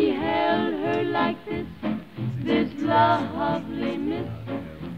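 Music: a voice singing a song, with held notes that bend in pitch.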